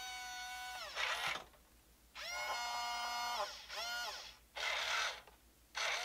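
Electric drive motor and gearbox of a Double E 1:20-scale RC road roller whining in short spurts, each spurt rising in pitch as it starts and falling as it stops. Short, harsher buzzes come in between.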